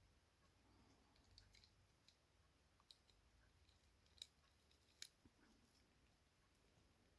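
Near silence with a few faint, sharp clicks, the two clearest about four and five seconds in: small metal screws and a screwdriver being handled against plastic model parts.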